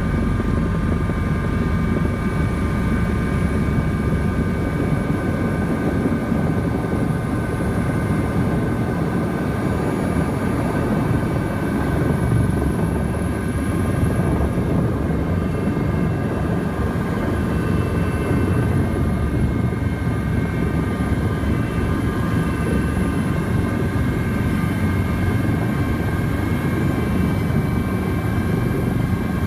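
Helicopter turbine and rotor noise heard from inside the cabin during the landing: a steady, loud drone with a constant high-pitched turbine whine above it.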